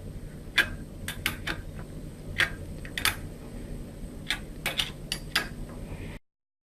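Irregular sharp metallic clicks and clinks of hand tools and fork parts being handled during motorcycle front-fork assembly, about a dozen over a steady low hum, cutting off suddenly near the end.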